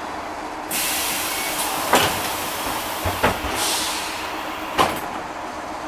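VMZ-6215 trolleybus's pneumatic doors opening at a stop: a sudden hiss of compressed air for about three seconds, with three sharp clunks from the door mechanism.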